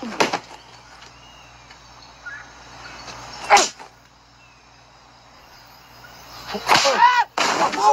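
One sharp open-hand slap to the face, about three and a half seconds in, followed near the end by a man's strained wordless cries.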